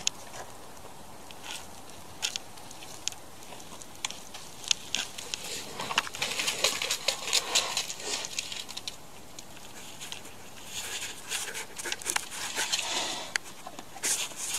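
Rustling and crackling in dry forest litter and twigs, with scattered sharp snaps, in two busier stretches about six and eleven seconds in.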